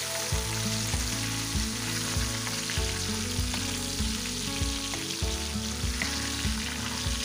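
Small tengra catfish frying in hot oil in a nonstick pan with a steady sizzle, as a spatula pushes and turns them.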